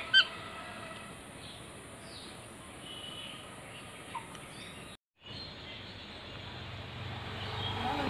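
Rose-ringed parakeet giving two short, sharp calls in quick succession at the start, then a few faint chirps over steady background hiss. The sound cuts out briefly near the middle.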